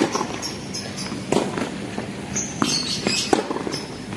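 Tennis ball struck by rackets and bouncing on a hard court during a rally: a few sharp pops, roughly a second apart.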